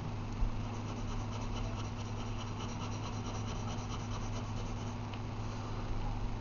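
Pencil lead rubbing across paper in rapid back-and-forth shading strokes, several strokes a second, over a steady low electrical hum.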